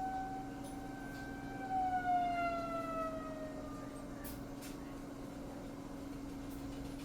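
Outdoor tornado warning siren wailing: its tone holds, then falls away in pitch and fades over a few seconds. A steady low hum runs underneath.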